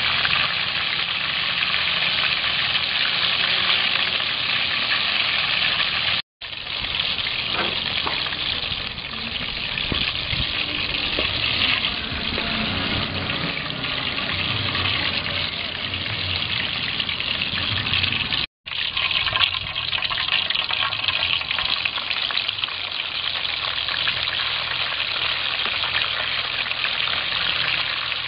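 Hot oil sizzling and bubbling steadily as whole sea crabs deep-fry in an aluminium pot. The sound cuts out briefly twice, about six seconds in and again about eighteen seconds in.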